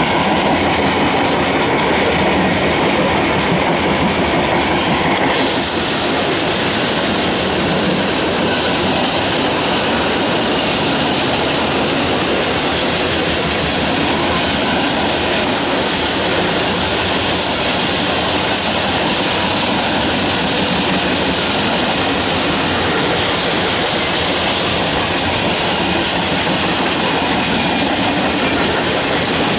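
Loaded coal train's steel-wheeled hopper cars rolling past at close range, wheels rumbling and clattering steadily on the rails.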